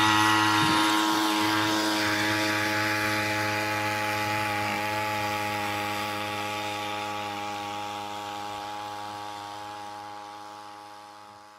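Small GX35-clone four-stroke outboard motor (Aqua Bug) running at a steady speed, pushing a canoe. Its buzzing drone fades steadily as the boat moves away.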